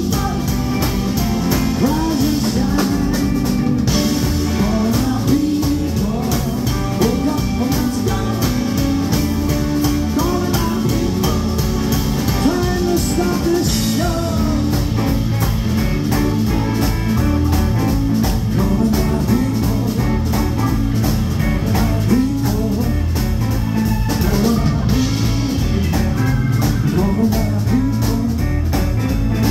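Rock band playing live: electric guitars, bass, keyboards and drum kit at a steady rock beat.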